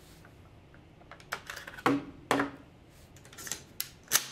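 A string of sharp clicks and knocks, irregularly spaced: an AR-15 rifle and its magazine being handled on a wooden shooting bench.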